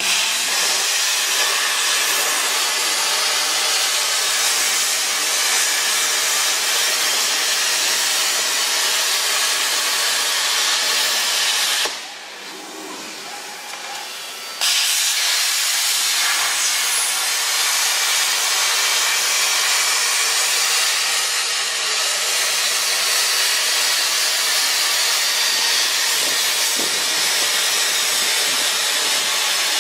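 Plasma torch of a 120 A CNC plasma cutter hissing loudly and steadily while cutting 14 mm stainless steel. The hiss drops away for about two and a half seconds some twelve seconds in, then starts again.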